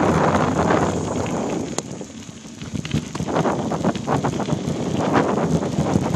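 Wind buffeting the microphone of a handlebar-mounted phone as a Trek X-Caliber mountain bike rolls over a dirt singletrack, with tyre noise and short rattles from bumps. It quietens for a moment about two seconds in, then picks up again with more frequent knocks.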